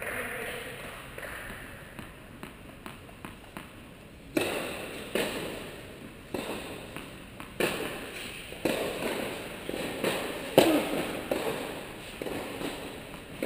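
Tennis balls bouncing on an indoor hard court and being struck with rackets: a string of sharp knocks at irregular intervals, about one a second, each echoing in the large hall, the loudest about ten seconds in.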